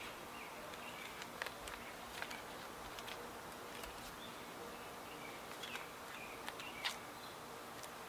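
Quiet handling sounds of blue painter's tape being wrapped to hold aluminum angle guides against a wooden shovel handle and flagpole: a few light, scattered clicks and faint rustles over a steady low background, the clearest click about seven seconds in.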